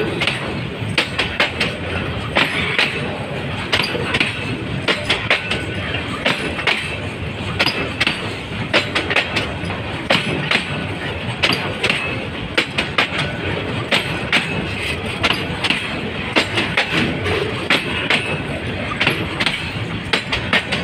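Loaded container flat wagons of a freight train rolling past: a steady rumble of wheels on rail, broken by frequent sharp, irregular clicks and clanks as the wheels clatter over the track.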